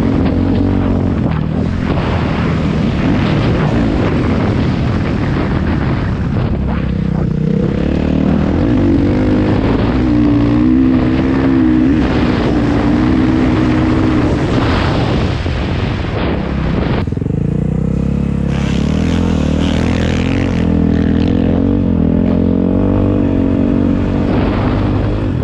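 Dirt bike engine running hard, its pitch rising and falling as the throttle opens and closes, with an abrupt change in the sound about two-thirds of the way through.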